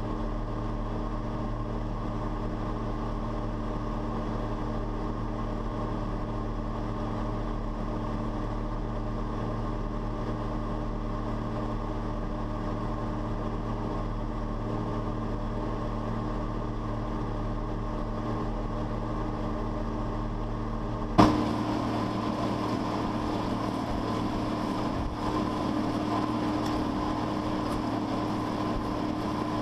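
John Deere 4850 tractor's six-cylinder diesel running steadily under load while pulling a disc, heard as a low, even drone from inside the cab. About two-thirds of the way through, a sudden pop, then the tractor is heard from outside over the disc: brighter and rougher, with more rushing noise.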